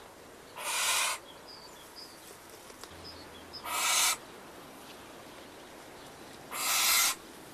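Barn owl screeching: three harsh, noisy shrieks, each a little over half a second long, about three seconds apart.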